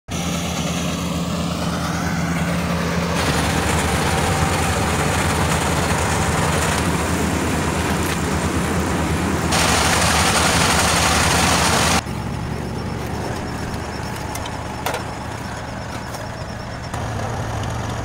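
Kubota combine harvester running: a steady diesel engine hum under the whir and rush of its cutting and threshing machinery. The noise jumps in loudness a few times, and is loudest for a couple of seconds just past the middle.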